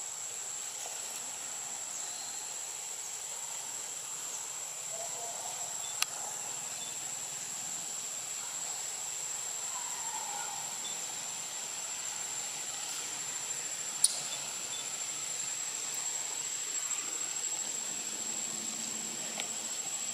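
Steady high-pitched insect drone over a hiss-like background. Two sharp clicks, the second louder: one about six seconds in and one about fourteen seconds in.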